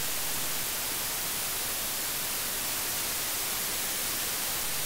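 Steady, even hiss with no tones or clicks: the self-noise of a microphone preamp played back as a demonstration of its noise floor, first the dbx 286s and then a Focusrite Scarlett 2i2 audio interface's preamp.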